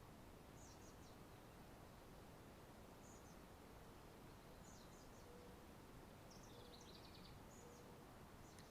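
Near silence: faint steady background hiss with a few faint, short, high chirps scattered through it, a small cluster of them a little before the end.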